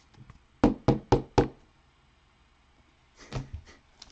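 A stack of trading cards knocked on a tabletop: four quick, sharp knocks about a quarter second apart, then a softer cluster of knocks about three seconds in.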